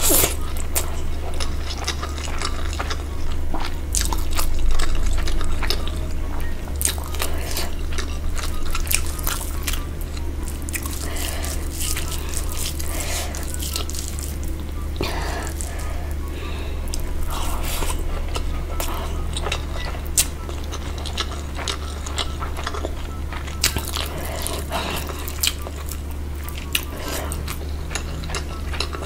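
Close-miked eating: biting and chewing with many short wet clicks and crunches, over a steady low hum.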